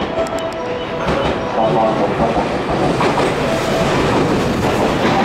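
JR West Special Rapid Service electric train pulling into the platform, its wheels clattering over the rail joints, getting louder about one to two seconds in as the cars come alongside.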